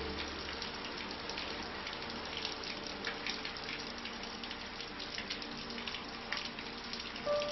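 Rain falling steadily, a hiss dotted with many small drop patters.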